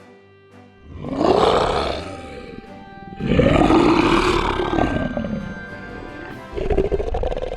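Big cat roaring three times: a first roar, a longer one that rises and falls in pitch, then a shorter one, over soft background music.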